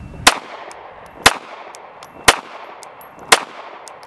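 Four pistol shots from a SIG Sauer P365 chambered in .380 ACP, fired at a steady pace about one second apart, each a sharp crack with a short echo.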